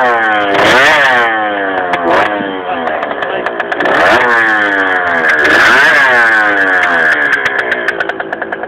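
Piaggio NRG two-stroke scooter engine with a Malossi Team expansion exhaust, revved in repeated throttle blips, its pitch climbing and falling back about four times. Near the end it drops to a steady, evenly pulsing idle.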